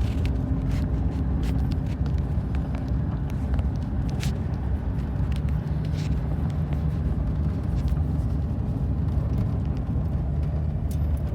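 A car driving along a rural road: a steady low drone of engine and tyre noise, with a few light clicks.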